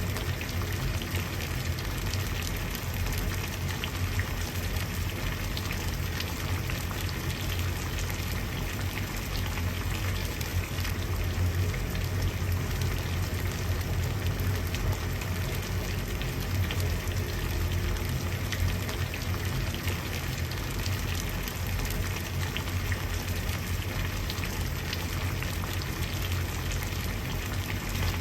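Water boiling: steady bubbling with fine crackling over a constant low rumble.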